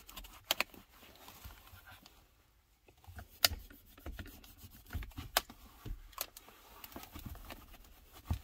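Microfiber towel being wiped over a car's interior trim and console, with a series of sharp clicks and knocks as the hand and towel bump the hard plastic.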